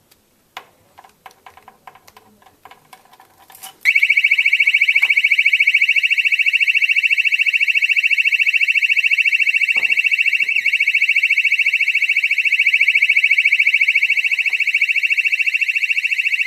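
Electronic alarm sounding a loud, rapidly pulsing high-pitched beep tone that starts abruptly about four seconds in. It is preceded by a few faint clicks and short tones.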